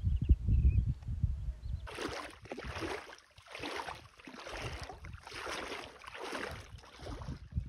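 Low wind rumble on the microphone for about the first two seconds, then footsteps wading through shallow seawater: six or seven splashing swishes, about one a second, stopping just before the end.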